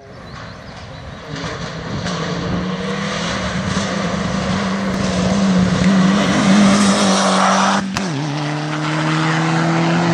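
Hill-climb race car engine approaching and passing at full throttle, its note climbing steadily and growing louder. About eight seconds in an upshift drops the pitch sharply, and the note then climbs again as the car pulls away.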